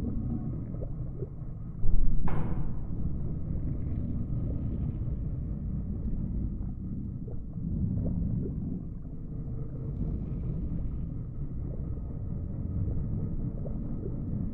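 Deep, steady underwater rumble. About two seconds in, a sudden loud hit fades away over about half a second.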